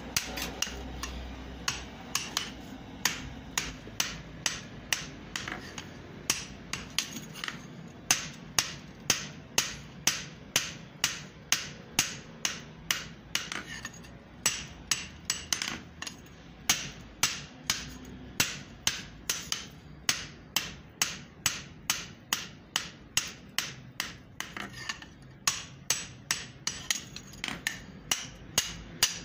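Blacksmith's hand hammer striking a red-hot steel axe head on an anvil in a steady rhythm, about two to three blows a second, each with a short metallic ring. There is a brief break in the hammering about halfway through.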